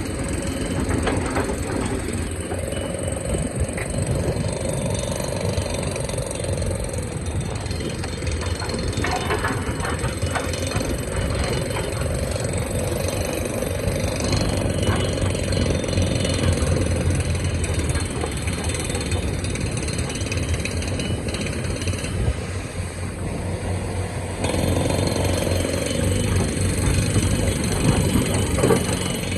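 Excavator's diesel engine running steadily under digging load, with a hydraulic whine that rises and falls away several times. Scattered knocks and scrapes come from the bucket working rock.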